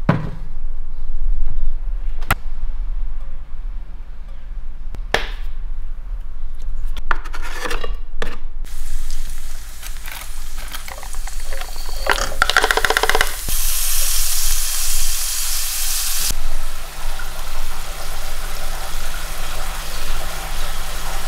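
Kitchen cooking sounds: a few sharp knocks and clatters of pans and utensils, then a steady hiss of water or frying from about nine seconds in, brightening for a few seconds midway after a quick rattle of clattering.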